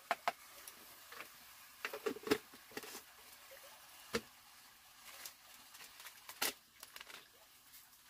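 Scattered light clicks and knocks of kitchen items being set down and handled on a wooden shelf, a dozen or so, the loudest about two seconds in and again about six and a half seconds in.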